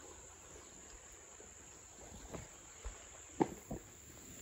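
A few short clicks and taps, the loudest about three and a half seconds in, over a faint steady outdoor hiss.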